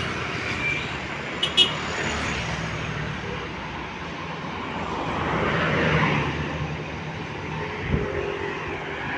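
Roadside traffic noise with a vehicle engine running low and steady. The noise swells as a vehicle passes about six seconds in, and two short clicks come about a second and a half in.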